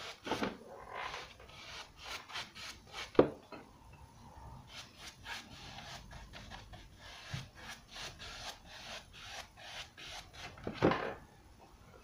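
Round paintbrush scrubbing paint onto a lampshade: many short, scratchy bristle strokes, with two louder knocks, about three seconds in and near the end.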